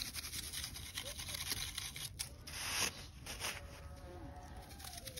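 Blue plastic snow scoop scraping and crunching through granular snow, with a louder scrape about two and a half seconds in.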